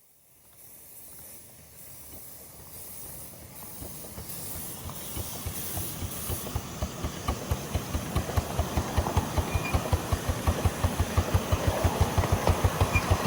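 Miniature railway locomotive approaching: a hiss at first, then a rapid, even beat that grows steadily louder as it nears.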